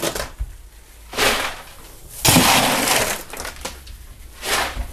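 Ice cubes clattering in rushes as they are scooped up with a metal scoop and poured into the hopper of a shaved-ice machine, three times.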